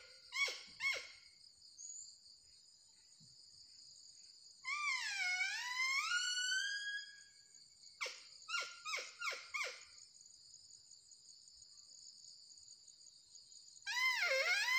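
Handmade deer caller for barking deer and sambar blown in whistling calls to lure deer: two short falling notes near the start, a long call that dips and rises again about five seconds in, a quick run of four short falling notes around eight to nine seconds, and another long call beginning near the end. Insects drone steadily underneath.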